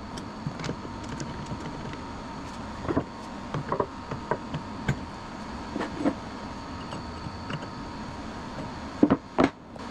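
Scattered light clicks and knocks of metal tools and parts being handled at a benchtop milling machine, over a steady background hum, with a few sharper knocks near the end.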